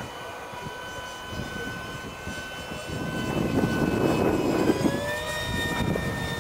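High whine of a brushless electric ducted fan on a model jet flying by, growing louder as it passes close; about five seconds in the pitch rises and then holds steady.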